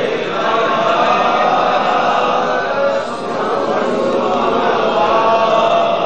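A crowd of men chanting together, many voices overlapping in long, drawn-out devotional lines.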